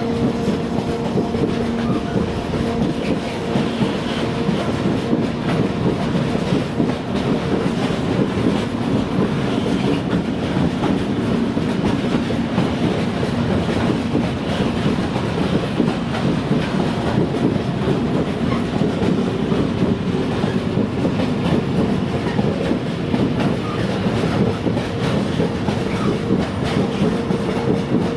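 A train rolling past at close range: a steady, loud rumble and clatter of wheels on the rails for the whole stretch, with a faint steady hum at the start and again near the end.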